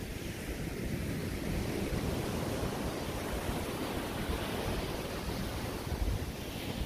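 Small ocean waves breaking and washing up a sandy beach in a steady hiss, with wind rumbling on the microphone.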